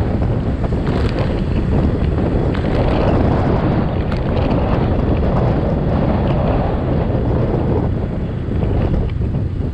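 Wind buffeting the microphone of a camera moving along a street, over the low, steady rumble of vehicle traffic.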